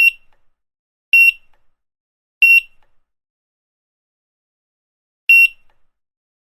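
Grocery checkout barcode scanner beeping: four short, high single-pitched beeps. The first three come about a second apart, and the fourth follows after a gap of nearly three seconds.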